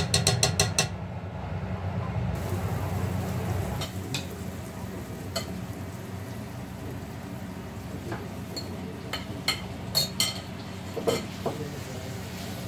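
A metal spoon clinks rapidly against a steel pot in the first second while powder is mixed into curry paste. Then onions sizzle in a frying pan, with a wooden spatula knocking and scraping in the pan several times near the end as chopped chicken is stirred in.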